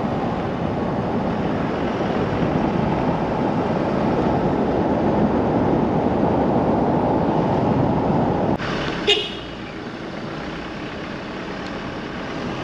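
Vehicle travelling on the road: a steady rumble of road and wind noise that drops off suddenly about eight and a half seconds in. A brief sharp sound follows, then a quieter steady hum.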